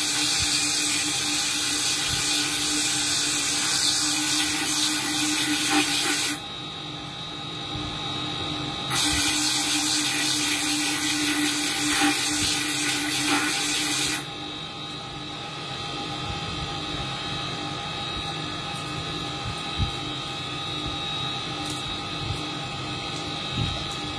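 Small bead-making spindle motor running with a steady whine, while a hand-held bit grinds into a sapphire bead in its chuck with a loud hiss. The grinding stops for about two seconds six seconds in, resumes, and ends about fourteen seconds in, leaving the spindle running alone with a quieter steady hum.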